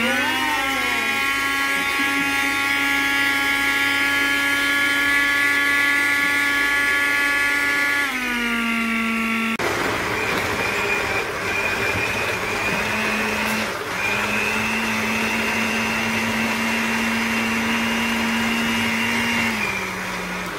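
Ikon countertop blender motor running, puréeing tomatoes, onion and chili: a steady high whine that drops in pitch about eight seconds in, turns rougher and noisier a moment later, and winds down near the end.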